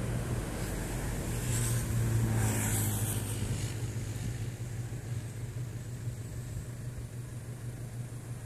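Light aircraft's engine droning steadily as the plane takes off and climbs away, slowly fading.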